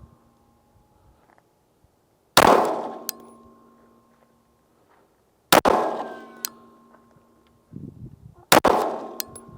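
Three 9 mm pistol shots from a Derya DY9, slow aimed fire about three seconds apart. Each is a sharp crack with a long echoing tail and a faint ring that lingers after it.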